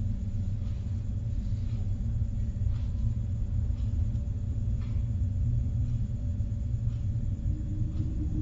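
Low, steady rumbling drone of horror-film ambient sound design, with a faint steady hum above it. A second low tone joins near the end.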